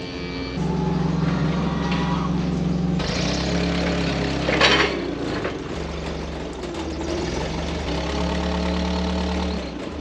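A vehicle engine idling steadily, with one brief louder sound about halfway through.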